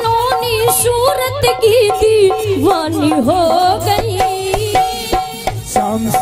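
Devotional bhajan music between sung verses: an ornamented, wavering melody line over a steady hand-drum rhythm. A low voice line comes in near the end as the singing resumes.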